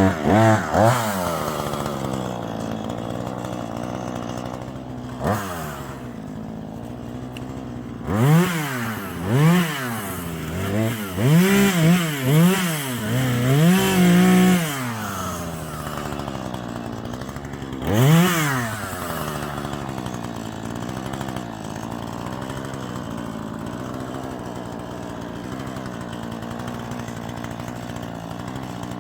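Husqvarna 440e two-stroke chainsaw idling and being blipped: a few quick revs at the start, a run of about eight rapid throttle blips in the middle and one more after, each rising and dropping straight back, then a steady idle.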